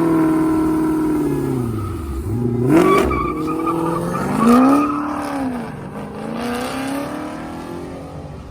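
A car's engine and loud exhaust revving hard, its pitch climbing and dropping several times as it accelerates, then fading away near the end.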